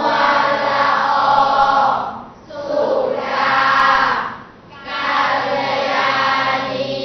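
A chorus of voices chanting a Thai กลอนดอกสร้อย verse in unison. It comes in three phrases of about two seconds each, with short breaks between.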